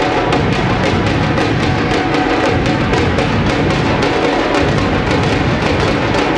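Dhol tasha ensemble playing: many large two-headed dhol drums beaten with sticks together with a tasha drum, in a fast, dense, unbroken rhythm at a steady loud level.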